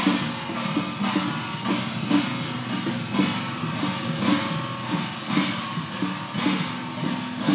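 Chinese procession percussion of drums, gongs and cymbals played together in a steady beat, with a strong stroke about once a second.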